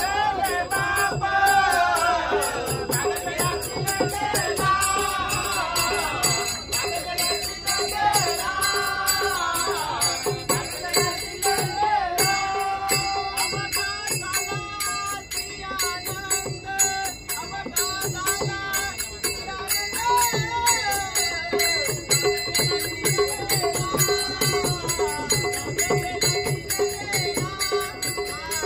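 Marathi devotional abhang sung in long, ornamented melodic phrases, with small hand cymbals jingling and a steady drum beat.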